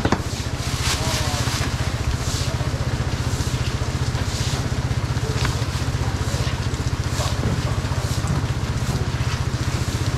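An engine idling steadily with a fast, even low pulse, with rain hissing over it.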